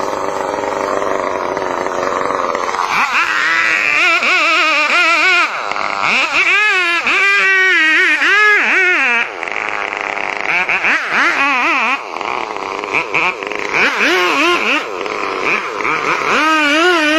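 Chainsaw engine revving up and down over and over, its pitch rising and falling in quick swings, as when the throttle is worked or the saw bogs and recovers in the cut; the pitch steadies near the end.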